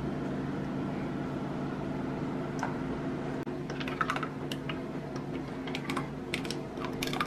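Scattered light clicks and taps from a metal pot against a plastic funnel and bottle as thick ketchup is poured, the clicks coming more often about halfway in, over a steady low hum.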